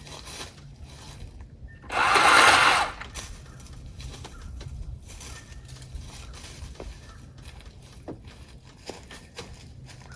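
Milwaukee M18 battery-powered pole saw running in one loud burst of about a second, about two seconds in. Otherwise a low steady hum with scattered light ticks and crackles.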